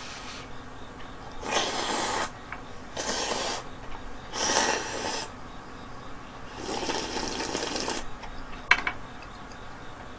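A person slurping instant cup ramen broth and noodles from a bowl, four separate slurps, followed by a single sharp click about 9 seconds in.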